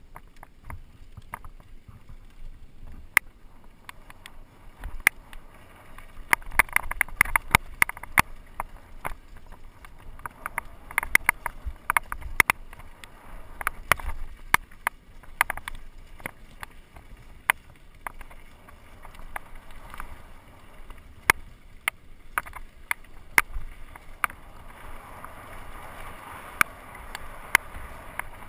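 Mountain bike riding down a dirt and loose-rock downhill trail: a steady rush of tyres on dirt, broken by frequent sharp clatters and knocks from the bike's chain and frame as it goes over bumps.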